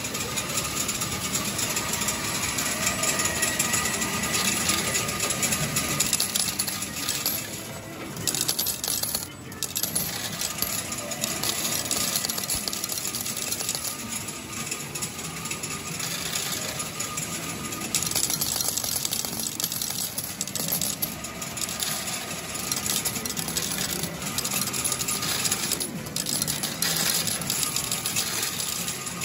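Metal medals on a medal pusher machine clattering continuously as the pusher shoves the pile and medals drop over the front edge, with music behind.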